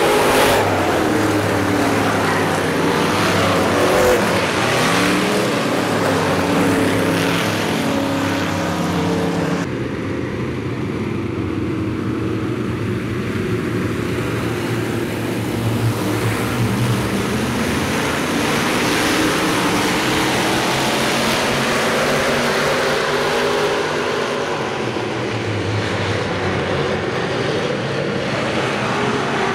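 A pack of hobby stock dirt-track race cars running laps together, several engines at once, their pitch rising and falling as the cars go by. The sound changes abruptly about ten seconds in, losing its high end.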